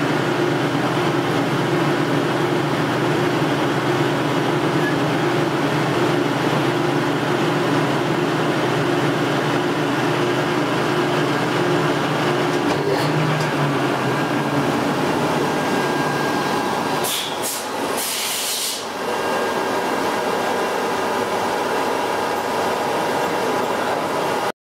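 Metal lathe running steadily under cutting, a drone with a fixed gear hum. A few short hissing bursts come about three-quarters of the way through.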